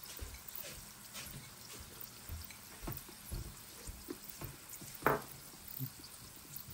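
Quiet eating sounds: chewing, with small clicks and taps of chopsticks against a ceramic bowl, and one louder short sound about five seconds in.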